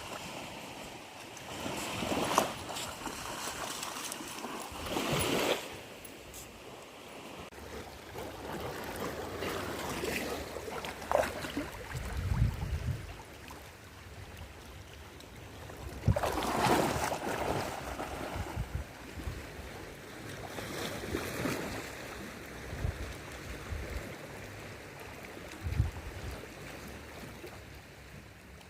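Sea waves washing onto a beach, swelling in surges every few seconds over a steady wash of surf.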